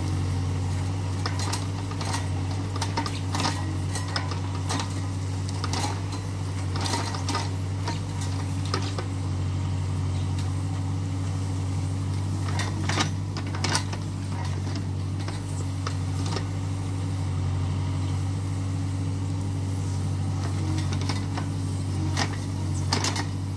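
Hyundai R30Z-9AK mini excavator's diesel engine running steadily while it digs, with sharp metallic clinks and knocks scattered throughout as the bucket works the soil.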